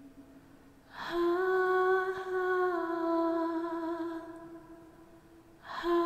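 A woman humming a slow, solemn tune: after a short pause, one long note held for about three and a half seconds, stepping slightly up and then down in pitch before fading, with a new note starting near the end.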